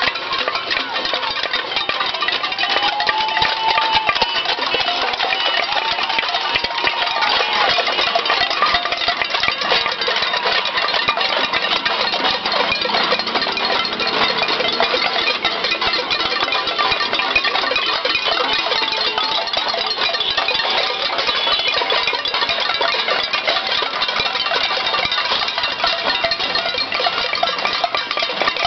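A cacerolazo: many people banging pots and pans with spoons at once, making a dense, unbroken metallic clanging.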